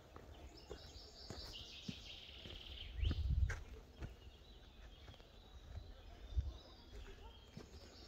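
Songbirds singing, with a high trilling song loudest from about one to three seconds in, over scattered soft footsteps. A low rumble shakes the microphone about three seconds in.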